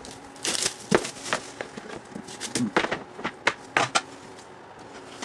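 A trading-card box being opened by hand: its lid is worked loose, lifted off and set down, giving about ten irregular clicks, knocks and short scrapes.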